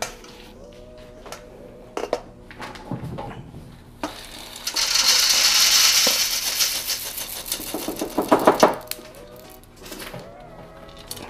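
Freshly roasted coffee beans poured from a roaster's pot into a stainless steel mesh colander. A few knocks as the pot is lifted, then a loud rush of beans pouring onto the metal mesh for about three seconds, and a clatter about eight seconds in as the last beans are shaken out.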